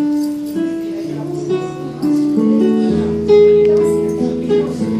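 Live acoustic guitar music: single plucked notes ringing into each other as a melody, with a low bass note joining about three seconds in.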